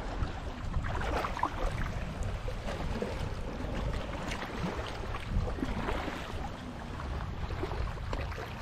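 Shallow seawater splashing and lapping around rocks, with wind rumbling on the microphone.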